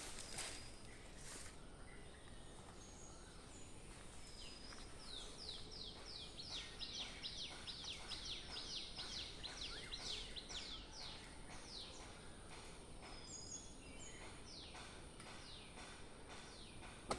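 A bird calling a fast run of short descending notes, about three or four a second, for several seconds, then a shorter run near the end, over a faint steady high-pitched hiss.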